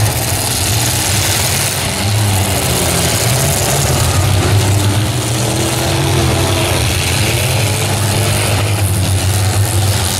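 Engines of many demolition-derby trucks and vans running together, rising and falling in pitch as the drivers rev them.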